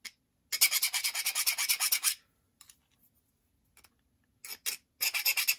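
Hand file rasping in quick back-and-forth strokes against a die-cast metal chassis part, clearing casting flash from its gear slot. It comes in a run of about a second and a half, then a pause with a couple of short strokes, then a second run near the end.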